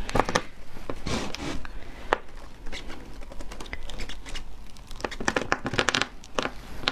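A Black Thorn durian's spiky husk crackling and tearing as it is prised apart by hand along its seams. The crackles come in clusters, heaviest near the start and again about five seconds in.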